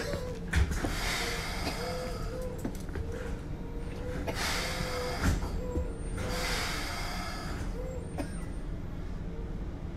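Keikyu 1500-series train standing at the platform with its equipment humming, while compressed air hisses in three long bursts from its air brake system before it pulls away.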